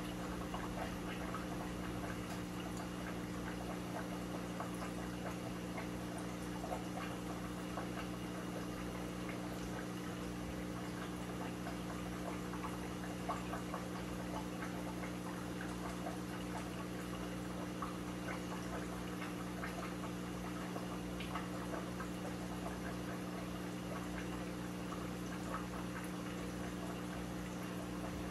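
Aquarium filtration running: water trickling and bubbling with a steady low hum from the pump.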